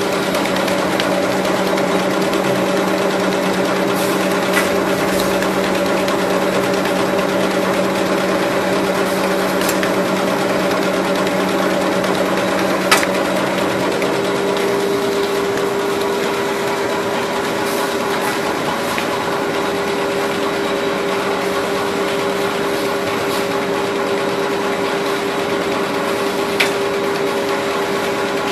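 A4 paper rotary cutting machine running steadily: a loud, even mechanical hum with a constant tone, and a lower tone that fades away about halfway through. A few single sharp clicks stand out, the loudest about halfway through and another near the end.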